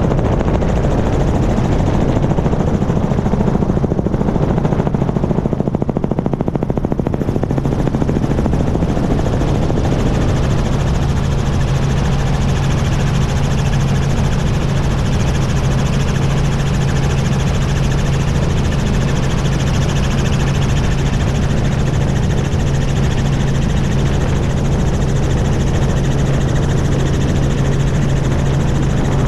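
Helicopter in flight, heard from a camera mounted on a pole outside the open cabin: a loud, steady drone of rotor and engine with a constant low hum. The hum grows a little stronger about ten seconds in.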